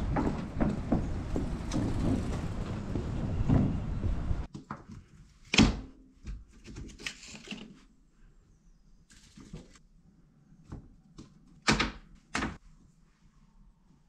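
Wind rumbling on the microphone outdoors, then, after an abrupt cut to a quiet room, a few sharp wooden knocks and softer taps as wood kindling and fuel briquettes are set down on a tiled hearth floor, three of them louder than the rest.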